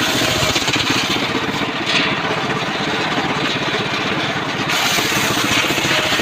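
Engine-driven portable circular sawmill running steadily with a fast, even engine beat. The high hiss drops away for a few seconds in the middle, then returns.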